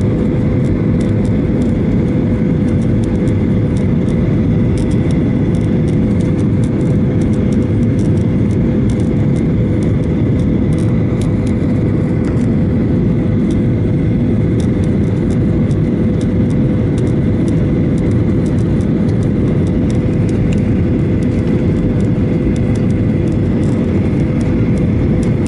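Jet airliner cabin noise on final approach with flaps extended: a steady roar of engines and rushing air, with a constant hum tone running through it.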